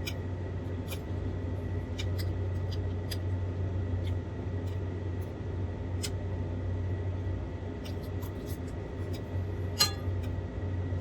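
Cutlery clicking and clinking against a plate during a meal, in scattered light taps with one sharper clink near the end, over a steady low hum.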